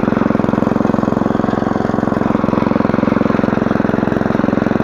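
Small petrol engine of a walk-behind rotary tiller running steadily with an even, rapid firing beat as it tills the soil.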